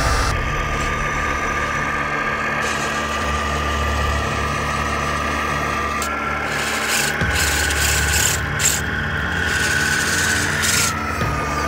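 Electric RC truck motors whining steadily, with a low hum under them, as the tracked semi churns through mud. The whine steps up in pitch about halfway through and slides back down near the end, with crackling mud splatter while it is higher.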